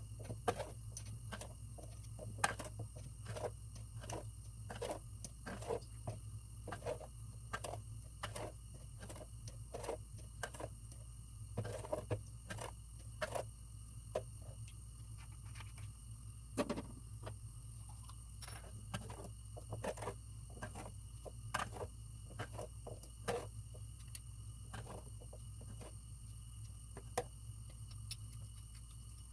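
Irregular light clicks and taps, like small objects being handled, over a steady low hum.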